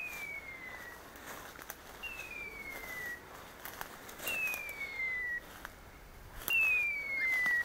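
A hunting dog's beeper collar sounds a falling electronic tone, about a second long, four times at roughly two-second intervals. The tones grow louder as the dog comes closer.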